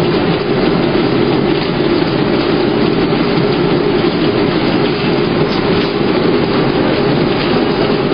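Grape sorting line running, with a stainless-steel sorting table carrying a layer of destemmed grapes: a steady, dense machine noise with a grainy rattle and no breaks.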